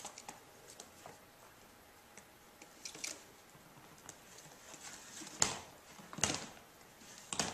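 A latex pig toy being dragged across a hardwood floor by a ferret: faint scrapes and light clicks, with two louder knocks in the second half as the toy bumps and turns on the floor.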